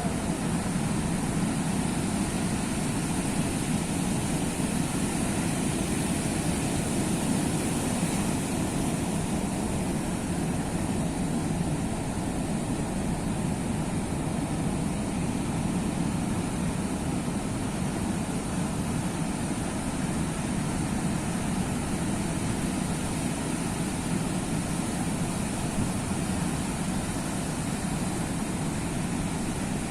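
Sea waves washing in: a steady, even rush of surf with no single wave standing out.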